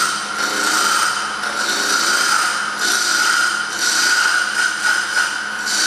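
Wood lathe running with a steady high whine while a turning tool cuts a small offcut, thought to be kingwood, in repeated scraping passes about once a second.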